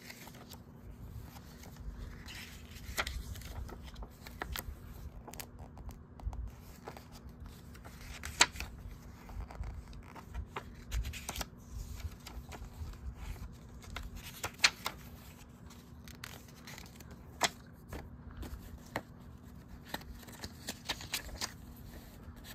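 Quiet handling of a VHS tape's cardboard sleeve, cassette and paper inserts: intermittent rustling and crinkling with scattered sharp clicks and taps, over a faint steady hum.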